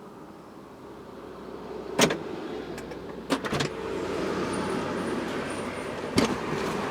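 Car noise heard from inside the car: a steady rush that grows louder over the first few seconds, with sharp clicks about two seconds in, around three and a half seconds, and again near the end.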